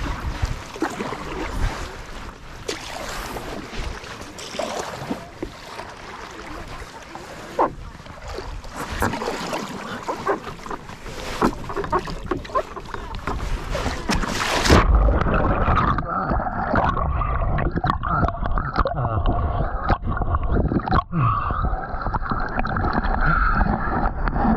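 Water splashing and sloshing around stand-up paddle boards on a river, with wind buffeting the microphone. About fifteen seconds in, the sound switches suddenly to a duller, more muffled recording.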